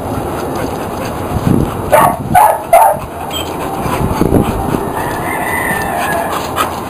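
Three short, loud animal calls about two seconds in, followed a few seconds later by a fainter, longer drawn-out call, over steady outdoor noise.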